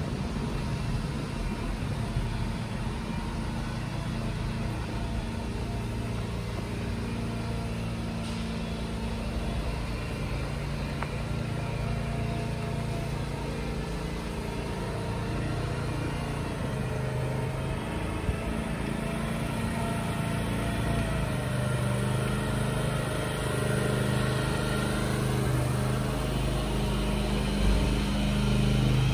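An engine running steadily nearby, a low, even hum that grows a little louder near the end.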